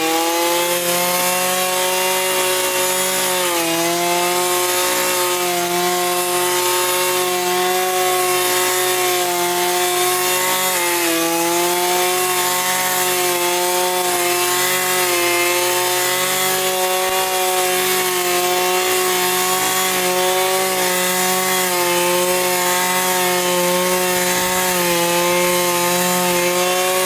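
Ikra lawn mower running steadily while cutting grass, a constant motor whine that dips briefly in pitch twice.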